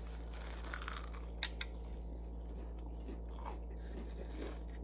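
Biting into a crumb-coated fried corn dog and chewing it, with a few crisp crunches in the first couple of seconds, then softer chewing.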